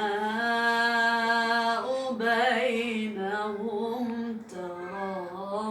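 Female voice chanting Quranic recitation (tajweed) unaccompanied, holding long drawn-out notes with a wavering ornamented run about two seconds in and brief pauses between phrases.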